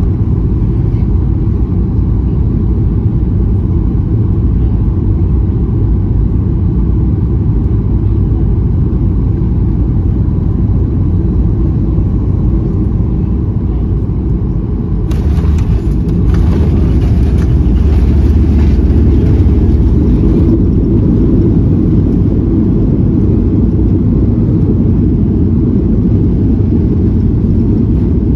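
Cabin rumble of a Boeing 737-900ER with CFM56-7B engines on short final. About halfway through, just after touchdown, a sudden louder roar with a rushing hiss comes in for about five seconds: reverse thrust slowing the jet on the runway. It then eases back to a steady rolling rumble.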